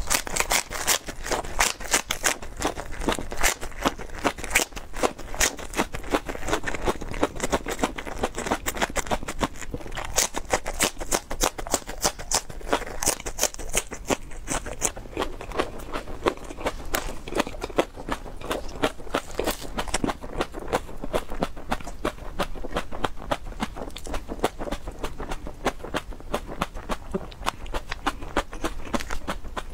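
Crunching and chewing of raw green onions (scallions): a dense, continuous run of crisp crackles and snaps from the crisp stalks being bitten and chewed.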